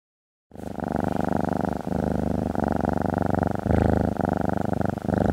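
A cat purring close up: a fast, even rumble that pauses briefly about every second, with each breath.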